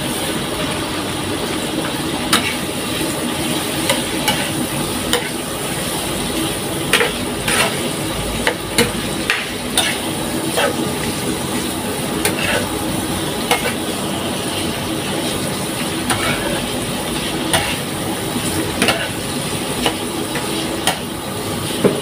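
Shrimp stir-frying in a nonstick frying pan: a steady sizzle, with the spatula scraping and clicking against the pan at irregular intervals as the shrimp are turned.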